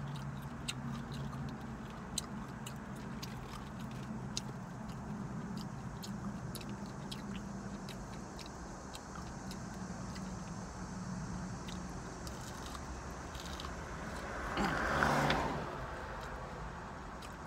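Steady low hum of a car idling, heard inside the cabin, with small scattered clicks and clinks of eating and bangle bracelets. Near the end a louder rushing sound swells and fades over about a second and a half.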